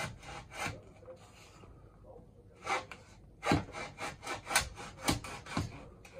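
Hacksaw cutting a mitre in a white skirting board held in a wooden mitre box, with rasping back-and-forth strokes. The sawing stops for about a second and a half after the first second, then resumes at about two strokes a second, louder.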